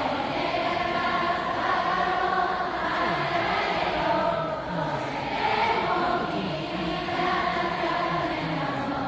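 A large crowd singing together in unison, many voices blending into one steady, choir-like sound.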